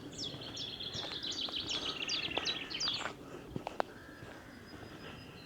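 A small songbird singing a quick run of repeated notes, each sliding down in pitch, about four a second, stopping about three seconds in. A few sharp clicks follow shortly after.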